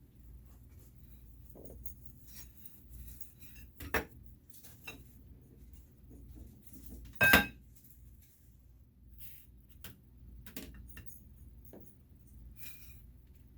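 Scattered light clicks and knocks of metal parts and tools being handled during assembly of a laser engraver, with one louder ringing metallic clink about seven seconds in.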